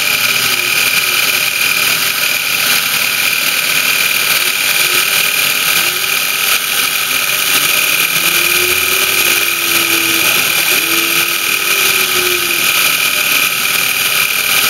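Optimum BF20L CNC milling machine cutting aluminium with a small end mill: a steady high spindle whine over a continuous cutting hiss, with lower tones that glide up and down as the axes move and change speed.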